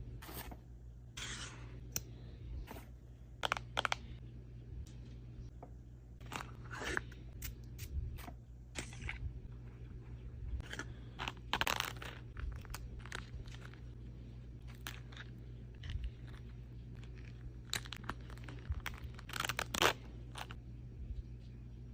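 Makeup packaging being unboxed by hand: irregular crinkles, tearing and light taps of paper and plastic, over a low steady hum.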